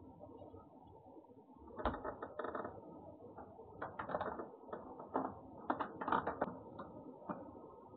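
A cat crunching dry food, with irregular crunches and clicks starting about two seconds in, over a steady hiss.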